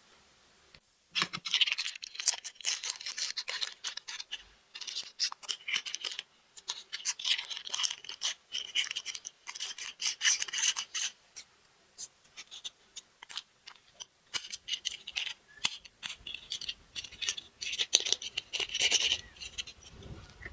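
Hands unpacking small plastic toys: repeated bursts of crinkling and scratching with many small sharp clicks between them.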